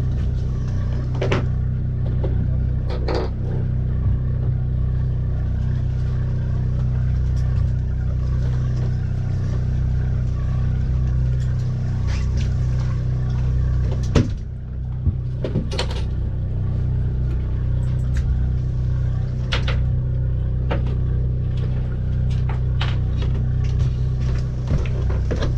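A boat's engine running with a steady, even drone, with a few short knocks and clatters over it.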